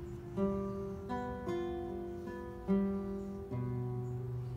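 Background music: a slow guitar melody of single plucked notes, each ringing on, a new one every half second to a second.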